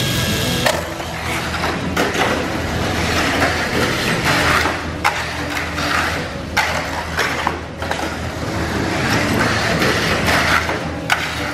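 Tamiya Mini 4WD car with a Mach-Dash PRO motor running on a plastic track: a steady buzzing whine of the motor and gears with the rollers rubbing along the track walls. Sharp clacks come about half a dozen times as it strikes the track.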